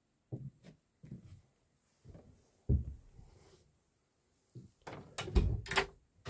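Scattered knocks and thumps of someone moving about inside a small yacht cabin, with a louder clatter of sharp clicks about five seconds in, like a wooden door or locker being handled.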